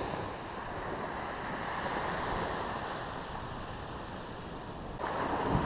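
Small surf washing onto a sandy beach, mixed with wind buffeting the microphone. About five seconds in, the sound turns abruptly louder and brighter.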